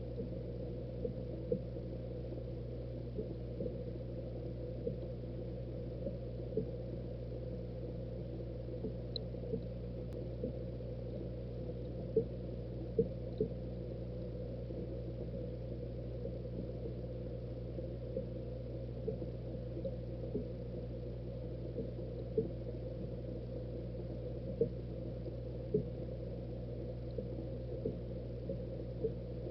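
Aquarium equipment humming steadily, with small irregular bubbling blips about once or twice a second.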